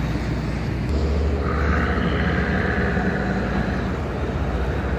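Tugboat's diesel engine running hard under load, its low hum getting louder about a second in, with a higher rushing sound for a couple of seconds in the middle.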